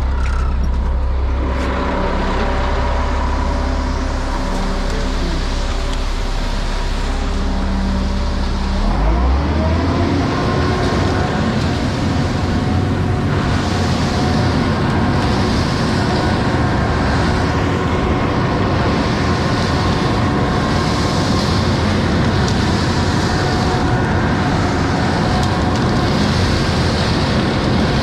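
Concrete mixer truck's diesel engine running, revving up about nine seconds in and holding the higher speed while the mixing drum turns. A hiss recurs about every second and a half over the engine.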